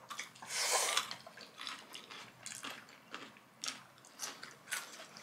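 Close-miked eating: a slurp of noodles about half a second in, then soft, wet chewing clicks and mouth smacks.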